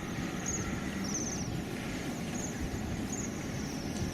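Cedar waxwings giving short, very high, thin trilled calls, repeated several times, over a steady background hiss.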